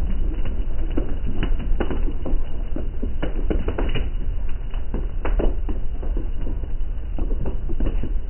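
Heavy rain lashing against window glass, a dense, irregular patter of hard taps that sounds like hail, over a steady low rumble.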